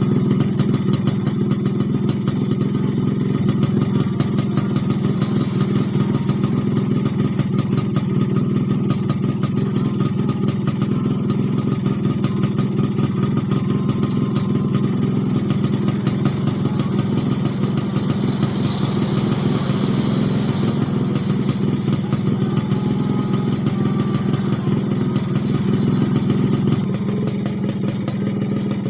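Suzuki X4 motorcycle engine idling steadily, with a fast, even ticking over the low exhaust note.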